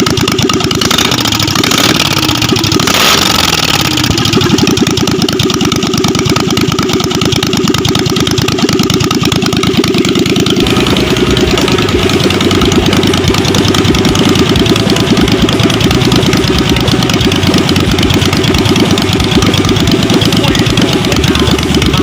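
Kohler 750cc air-cooled two-cylinder V-twin engine running, its speed rising and falling in the first few seconds before settling into a steady run. About ten seconds in, the note shifts and gains more low-end.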